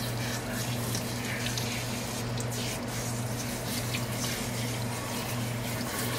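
Water running from a kitchen faucet's pull-out sprayer, spraying and splashing over a wet puppy into a stainless steel sink as it is rinsed, with a steady low hum underneath.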